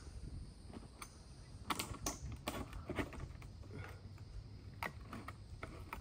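Irregular small clicks and knocks over a low rumble, the sharpest a little under two seconds in, at two, two and a half and three seconds, and again near five seconds: handling noise as a solar light fixture is worked onto its mount on a tree.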